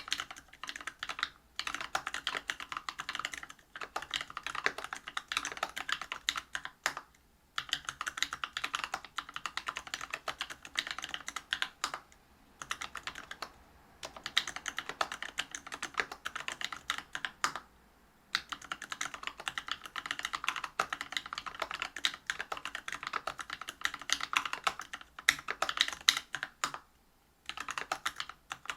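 Continuous fast typing on a Whale 75 mechanical keyboard with a brass plate, Bingsu POM linear 67 g switches and PBT keycaps: dense runs of clacking keystrokes broken by a few brief pauses.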